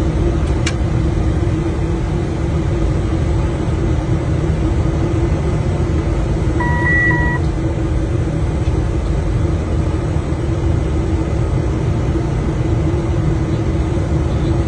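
Steady cockpit noise of a jet airliner on final approach: airflow and engine rumble with a constant low hum. Just past halfway, two short electronic beeps.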